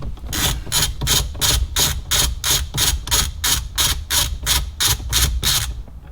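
Ratchet wrench with a 10mm socket worked back and forth on a dash bolt. Each stroke gives a quick burst of pawl clicks, about three strokes a second, and the strokes stop shortly before the end.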